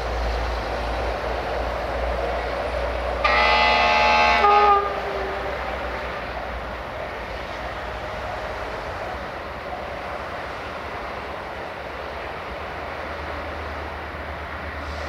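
CFR Class 65 diesel-electric locomotive approaching with a passenger train, its engine a steady low rumble. A few seconds in it sounds one horn blast of about a second and a half, with a lower note trailing off after it.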